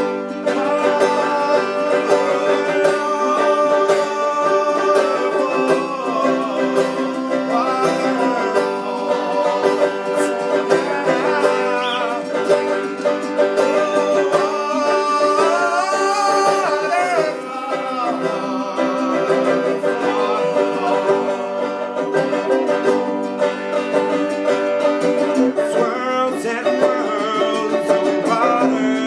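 An acoustic song: a finger-picked string instrument with a man singing a melody over it.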